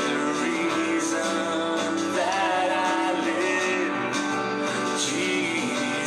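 Music: a song with a voice singing over guitar accompaniment.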